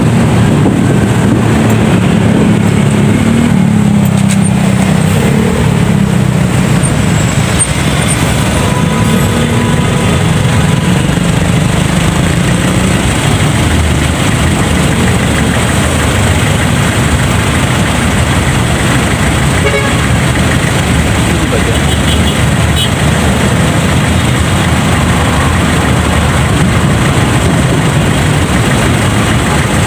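Motorcycle running on the move, with heavy wind noise on the microphone and road noise, and a brief vehicle horn toot about ten seconds in.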